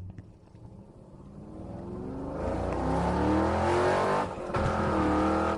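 Motor vehicle engine sound effect accelerating: a low hum that builds in loudness as its pitch rises, with a short break about four and a half seconds in before it runs on.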